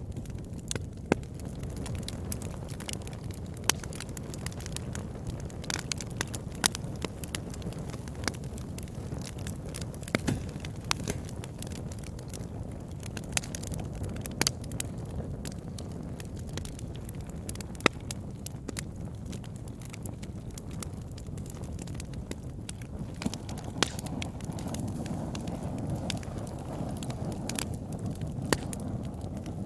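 Campfire burning: wood crackling with irregular sharp pops and snaps over a low, steady rumble of flame.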